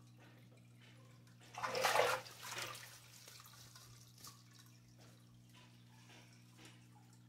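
Aquarium water splashing as a peacock bass is scooped up in a hand net, a loud splash about a second and a half in, followed by light drips and small knocks as the dripping net is lifted out over the tank.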